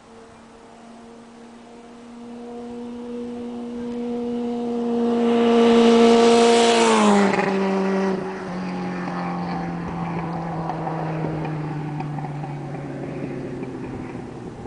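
1978 Honda CB750's air-cooled inline-four passing by at a steady speed. The engine note builds as it approaches, drops in pitch as it goes past about seven seconds in, then fades as it moves away.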